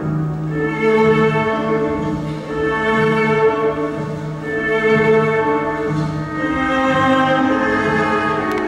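Orchestral music led by bowed strings, held chords shifting about every second.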